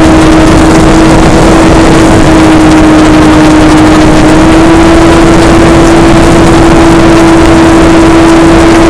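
Model airplane's motor and propeller running at a steady high pitch under heavy wind rush, very loud on the onboard camera's microphone. The pitch steps up slightly about four seconds in.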